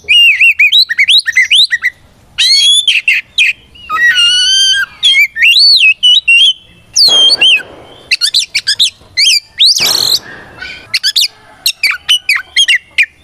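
Oriental magpie-robin singing loudly and continuously: a varied run of clear whistled phrases, quick chirps and up-and-down sweeps, with two short harsh, rasping notes about seven and ten seconds in.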